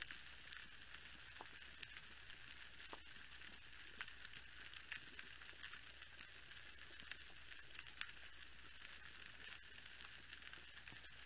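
Faint underwater coral reef crackle: a dense, constant patter of tiny clicks typical of snapping shrimp, with a few sharper snaps about four and eight seconds in, over a faint steady low hum.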